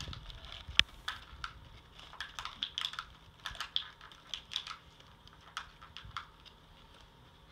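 Tissue paper crinkling in quick, irregular crackles as a small child's hands rummage in a gift bag stuffed with it, with one sharp crackle about a second in.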